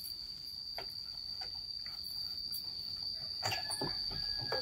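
Insects droning: one steady, unbroken high-pitched tone. A few light knocks and rustles come near the end.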